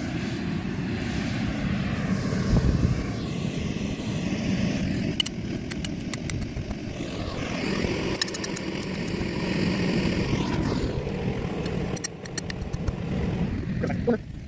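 Electric blower fan of an inflatable bouncy castle running steadily, a continuous low drone as it keeps the castle inflated. Scattered faint ticks come now and then through the middle stretch.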